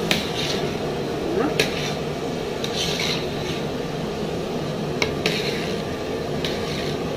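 Steel slotted spoon stirring rice and chicken masala in a large aluminium pot: grainy scraping swishes through the rice and three sharp clinks of the spoon against the pot, over a steady low hum.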